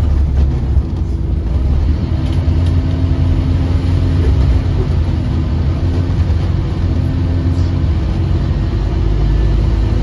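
Scania OmniCity double-decker bus's diesel engine and drivetrain heard from inside the lower deck while it drives along: a steady low rumble, with a held hum joining about two seconds in and fading out near eight seconds.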